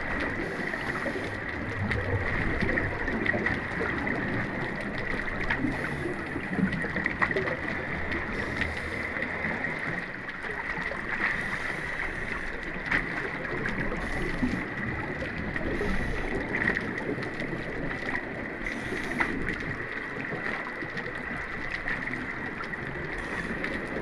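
Underwater drone running beneath the surface: a steady high whine over a bed of water noise, with scattered faint clicks.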